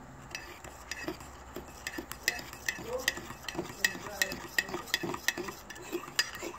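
A metal utensil stirring a thick sauce of brown sugar and honey in a bowl, clicking against the bowl's side about three times a second.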